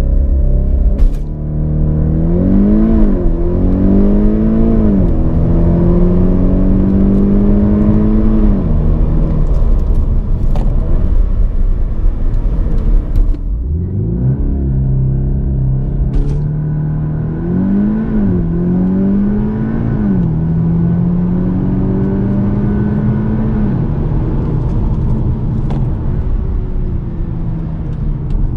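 VW T-Roc R's turbocharged 2.0 TSI four-cylinder with Akrapovic exhaust under full-throttle launch-control acceleration, heard twice: each time the engine note climbs in pitch, broken by quick DSG upshifts.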